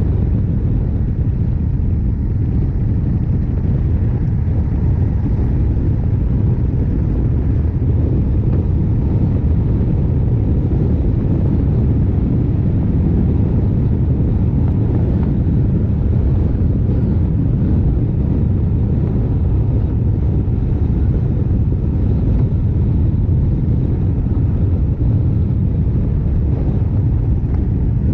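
Honda CRF1100L Africa Twin's parallel-twin engine running at a steady cruise, under an even low rumble of wind and road noise on the mount-mounted microphone.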